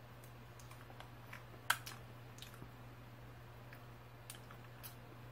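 Faint chewing of a forkful of cream cake, with a few soft clicks, the sharpest just under two seconds in, over a low steady hum.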